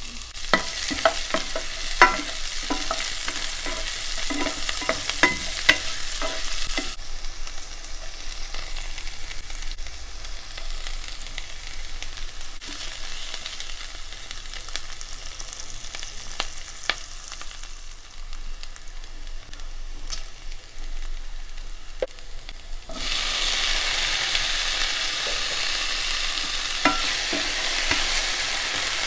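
Chopped onions with curry leaves and green chillies sizzling in hot oil in a non-stick pan, with a wooden spatula knocking and scraping against the pan as they are stirred, the knocks thickest in the first several seconds. The sizzle grows clearly louder near the end.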